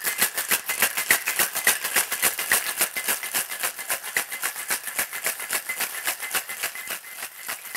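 Ice rattling in a cocktail shaker shaken hard, a fast, even rhythm of sharp strokes that keeps up without a break.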